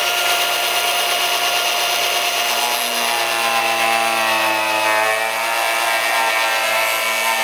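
Angle grinder with a cutoff wheel running at full speed and cutting through a plastic fender flare. It gives a steady whine that dips slightly in pitch a few seconds in as the wheel bites into the plastic.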